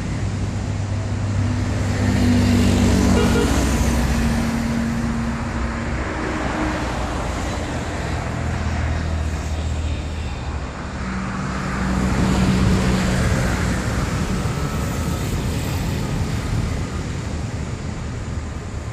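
Road traffic going by: vehicle engines hum past twice, loudest about three seconds in and again about twelve seconds in, over a steady background rush.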